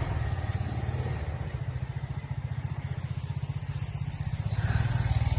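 Motorcycle engine running with a rapid, even low throb, getting louder near the end.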